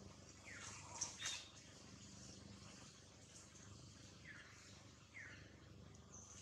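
Newborn long-tailed macaque giving a few short, high, falling squeaks, with a couple of sharp clicks about a second in.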